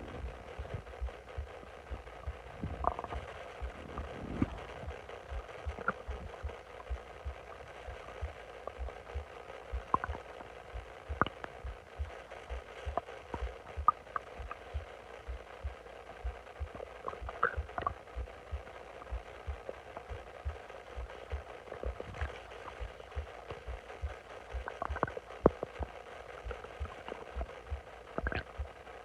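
A bloated stomach gurgling, with short squeaky gurgles scattered through, over a steady run of low thumps about twice a second.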